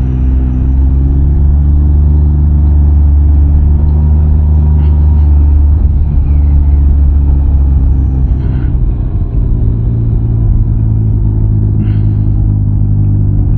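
Can-Am Ryker three-wheeler's engine running steadily while cruising along a road.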